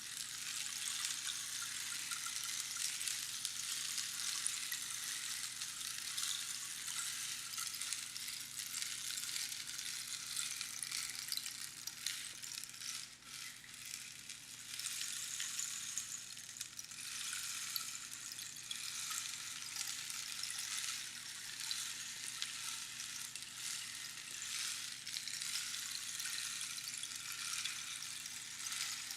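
Rainstick: small pebbles or beans trickling down past the pins inside a hollow cactus tube, a dense, fine pattering like falling rain. It thins briefly about halfway through, then builds up again.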